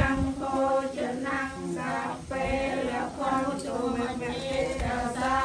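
Theravada Buddhist chanting in Pali: a monk's voice and several others recite together in a steady, rhythmic chant.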